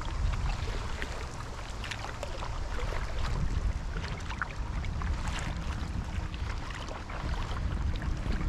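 Stand-up paddleboard paddle working through lake water: scattered splashes and drips from the strokes, over a low rumble of wind on the microphone.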